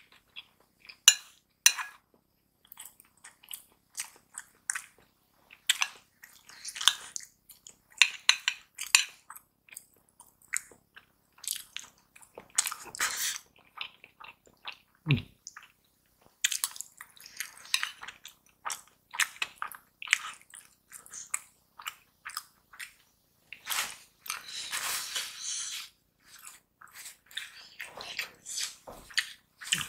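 Close-up wet chewing and mouth smacking while eating rice and vegetables, a string of short, sharp clicks, with a spoon now and then scraping against a ceramic bowl.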